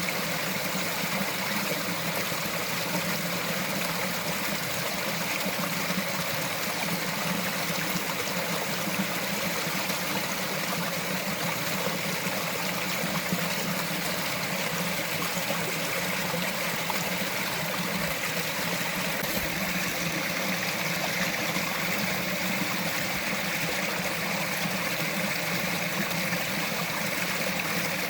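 Small mountain forest stream trickling and gurgling steadily over rocks.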